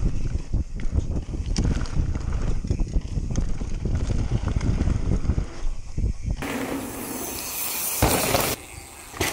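Mountain bike ridden fast down a rough dirt and rock trail: wind buffets the helmet-mounted microphone, and the tyres and frame rattle over the ground. About six seconds in, this gives way to a hiss of bike tyres sliding through loose, dusty dirt for about two seconds.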